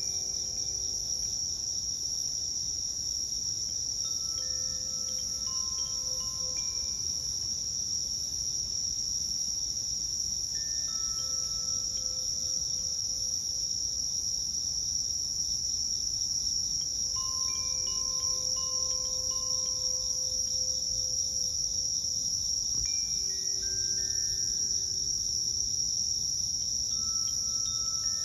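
A steady, high insect chorus, with a Koshi Terra wind chime ringing softly over it: every few seconds a few clear, sustained notes.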